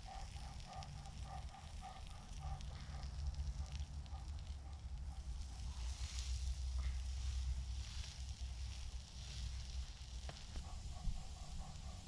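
Campfire crackling while butter and a cheese-filled pita quesadilla sizzle in a small pan over it.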